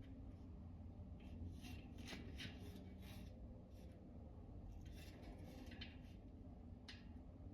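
Faint, scattered rubbing and scraping of a rubber bicycle tire and tube being worked onto the wheel rim by hand.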